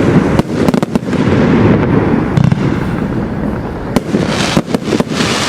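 PyroKing High Velocity compound firework cake firing: dense, rapid crackling with sharp bangs from bursting shots, a quick cluster of bangs near the end.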